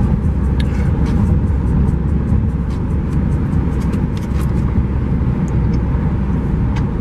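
Road and wind noise inside a car cruising at freeway speed: a steady, loud low rumble, with a few faint clicks scattered through it.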